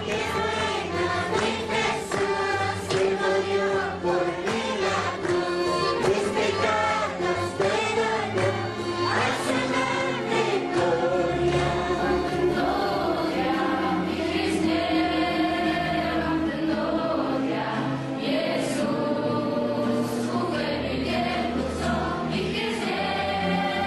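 Choir singing with musical accompaniment, in the style of church worship or gospel music.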